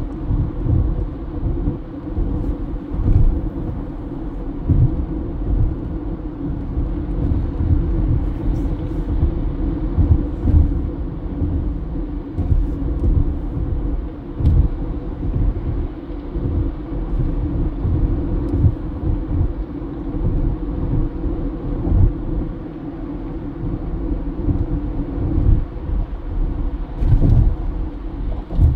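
Steady low rumble of a car being driven: road and engine noise with uneven low surges.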